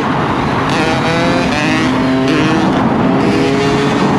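Yamaha YZ125 two-stroke dirt bike engine being ridden hard, its pitch climbing and dropping back in steps a few times as it revs through the gears.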